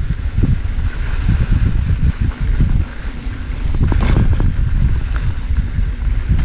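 Wind rumbling on the camera microphone as a mountain bike descends a rough dirt trail, with steady rattles and knocks from the bike running over rocks and roots, and a sharper clatter about four seconds in.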